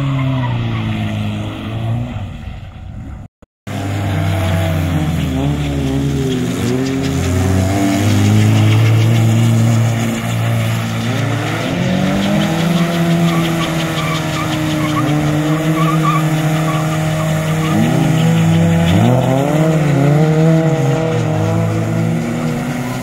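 A Lada saloon's engine revving hard, its pitch rising and falling over and over as the car slides through turns on loose dirt. The sound cuts out briefly about three seconds in.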